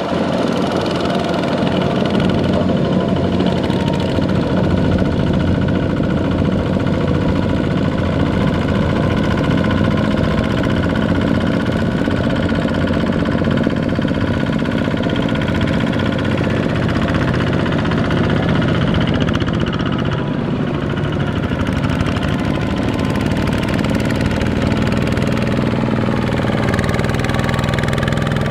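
Two-wheel walking tractor's single-cylinder diesel engine running steadily as it pulls a loaded trailer through mud.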